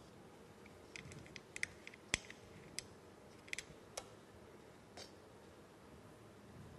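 Faint, irregular clicks and taps of a wrench being worked on an air compressor's oil drain plug to loosen it, a dozen or so scattered over a few seconds.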